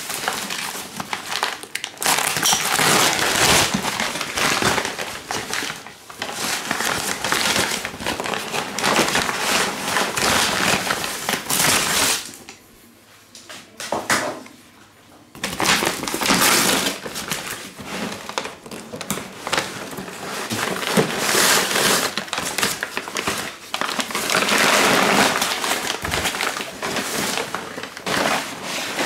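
Brown kraft packing paper being pulled off and crumpled by hand: loud, crackling rustles in quick successive bursts. There is a lull of a few seconds about halfway through.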